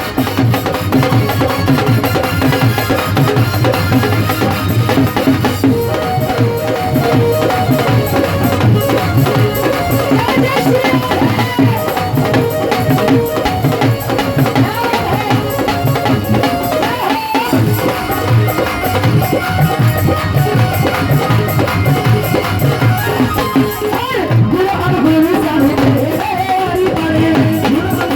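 Instrumental interlude of a Hindi devotional bhajan: drums keep a steady, busy beat under a wavering melody line, with no singing.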